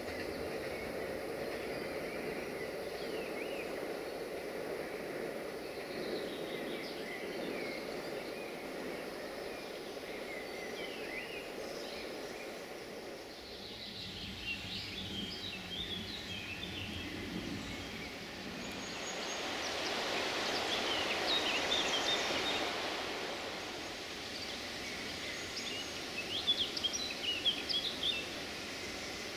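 Songbirds chirping and singing in short rapid phrases, with a burst of louder chirps near the end. A low rumble fades away over the first half, and a swell of rushing noise rises and falls about two-thirds of the way through.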